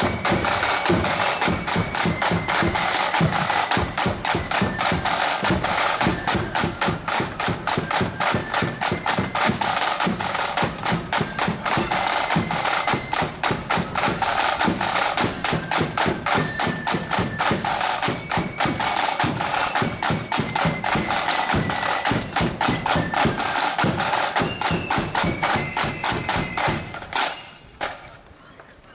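Marching band playing: a high melody over fast, dense snare drumming and bass drum beats. The music stops about a second before the end.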